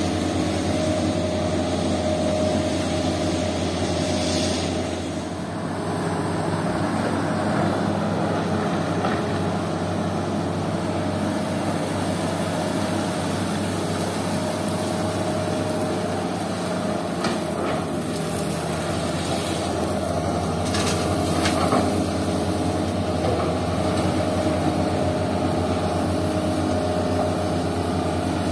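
Heavy diesel engine of a Hitachi hydraulic excavator running steadily as it digs and loads sand and gravel, with a few short clatters about two-thirds of the way through.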